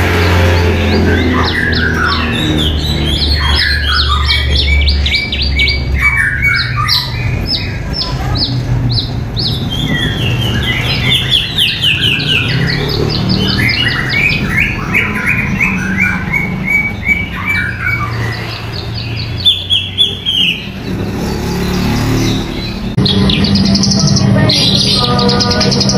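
A caged songbird singing a long, varied song of rapid repeated trills and whistled phrases. About 23 seconds in, it gives way to a Javan bush lark (branjangan) singing quick high notes over faint background music.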